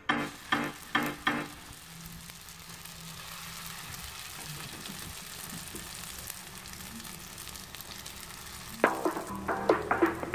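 Spring rolls frying in shallow oil in a wok: a steady sizzle. Background music with a regular beat plays over the first second or so and comes back near the end.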